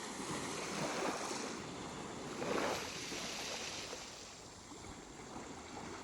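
Small waves washing up on a sandy beach, the surf swelling about a second in and again, a little louder, about two and a half seconds in.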